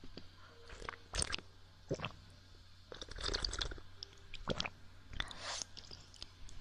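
Close-up wet mouth sounds of ear-licking ASMR: licking and lip smacks right at the microphone, coming as irregular sharp clicks and short wet bursts.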